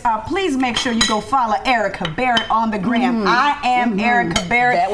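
Several women's voices chattering at once over plates of food, with the clink of plates and cutlery.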